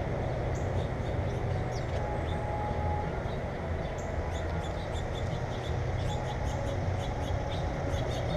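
Small birds chirping: short, high, quick notes and little downward sweeps, coming thicker in the second half. They sound over a steady low rumble.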